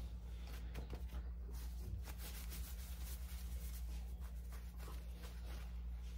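Faint rustling and light rubbing of thin baklava dough sheets being laid and handled, over a steady low hum.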